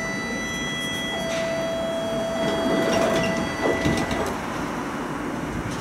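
Tram's door warning signal: a steady electronic beep held for about four seconds before it cuts off, with a few knocks from the doors and car body partway through, over the hum of the stationary tram.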